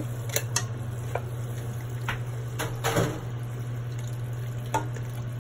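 Drained elbow macaroni tipped from a mesh strainer into a stainless steel pot of simmering broth, then stirred with a spoon that knocks and scrapes against the pot several times, loudest about three seconds in, over a steady low hum.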